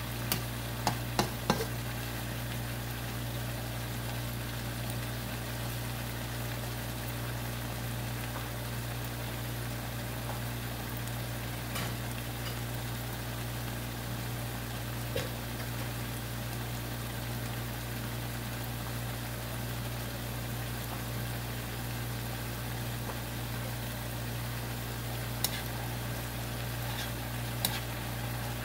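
Yardlong beans and pork belly sizzling steadily in a wok over a steady low hum. A plastic spatula clicks against the pan a few times in the first couple of seconds and twice near the end.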